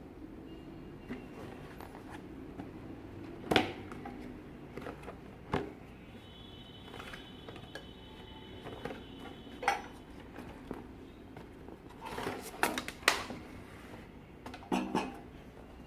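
Light clicks, knocks and clatter of a miniature metal stove and its small parts being handled, at irregular moments every second or few, the loudest about three and a half seconds in and again around thirteen seconds in. A faint steady high tone sounds in the middle stretch.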